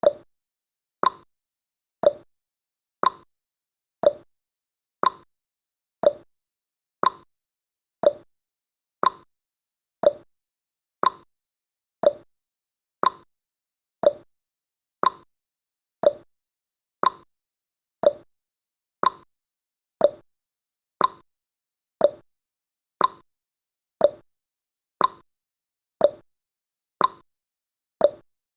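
Clock-style ticking sound effect of a countdown timer: a short, sharp tick exactly once a second, each one marking a second of the count.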